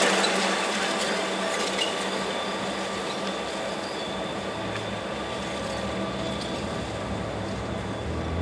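Reading & Northern diesel locomotive running at low throttle, a steady engine hum with a faint high whine. The noise of a train rolling past fades away over the first few seconds.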